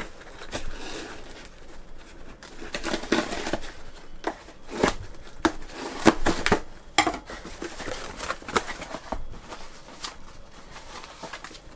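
A knife slitting and scraping through the tape on a cardboard box, with short rips of tape being pulled, then the cardboard flaps being pried open and rustling. The rips and scrapes come irregularly.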